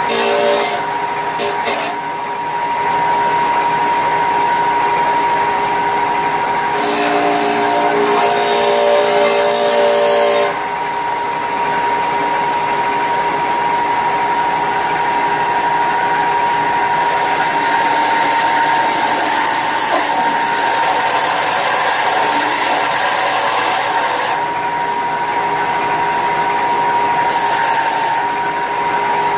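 A power tool running continuously with a steady high whine, grinding or cutting into material. The sound changes character several times as the tool bears on the work.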